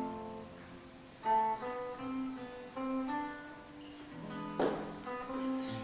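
Acoustic guitar played by hand: single plucked notes picked out one after another in a slow melody, with a louder strum near the end.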